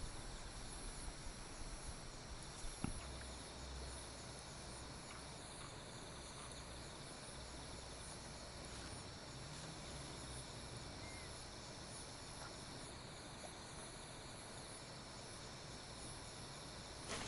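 Faint chorus of night insects, crickets chirring steadily, with a soft tap about three seconds in.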